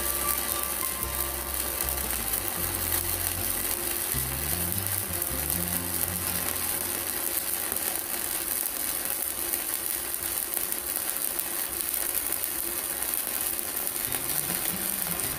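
Stick (MMA) arc welding with a 4.0 mm electrode on a mini IGBT inverter welder: the arc gives a steady, dense crackle and hiss as the rod burns down.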